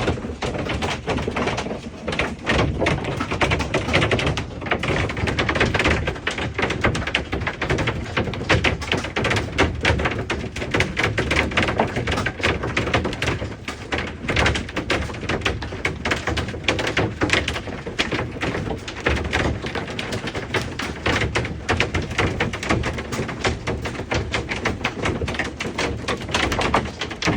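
Half-inch hail pelting the fiberglass roof and body of a Class A motorhome: a dense, unbroken clatter of many small, irregular impacts.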